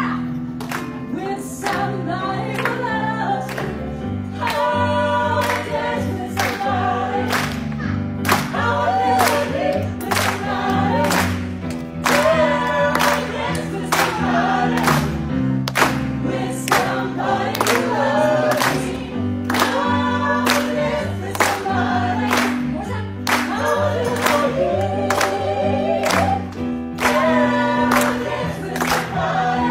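A woman singing a pop song into a microphone, amplified, over accompaniment with a bass line and a steady drum beat.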